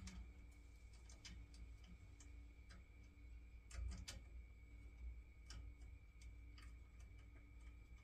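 Faint, irregular clicks, roughly one a second, from the controls at the gas valve of an old Baxi gas boiler being worked by hand.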